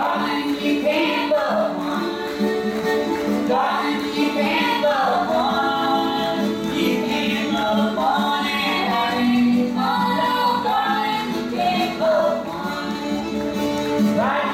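Old-time string band song: voices, a woman's among them, singing over a fiddle and strummed acoustic guitars.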